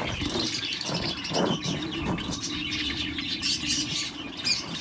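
Java sparrows chirping in an aviary: many short, high chirps from several birds, overlapping throughout.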